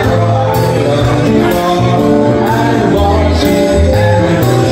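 Live band playing: drum kit with cymbal strokes, electric guitars and a low bass line, with a man singing into a microphone.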